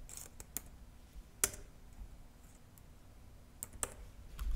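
A few scattered sharp clicks, about five spread over the stretch, with a low thump near the end.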